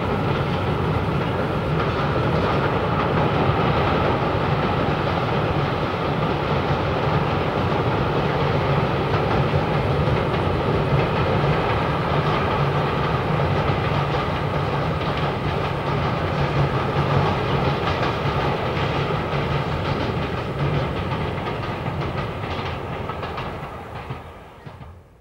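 Freight train hauled by an Adtranz locomotive crossing a steel trestle viaduct: the wagons rumble steadily with a running clatter of wheels over rail joints. The sound fades away near the end.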